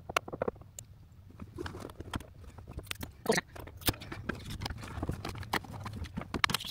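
Irregular clicks, taps and light knocks of hands handling a cable and plastic cable-clip fittings, over a low steady hum.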